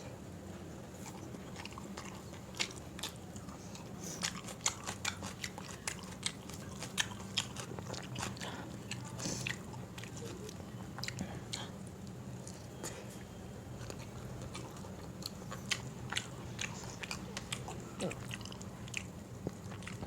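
A person chewing a soft meal of dal, rice and vegetable curry close to the microphone, with many short, irregular wet mouth clicks and smacks.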